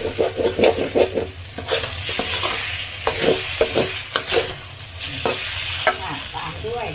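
Metal spatula scraping and knocking against a wok in quick strokes, stir-frying rice and duck that sizzle in the hot pan. The strikes are fast and ringing for the first second or so, then come more sparsely over the sizzle.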